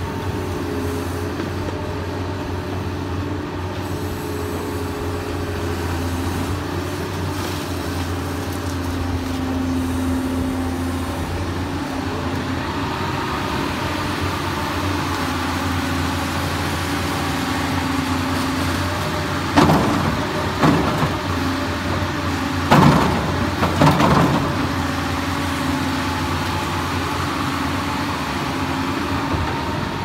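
Crawler excavator's diesel engine running steadily under work, with a hydraulic whine that rises and falls. About two-thirds of the way through come two clusters of loud knocks and scrapes, metal striking and scraping.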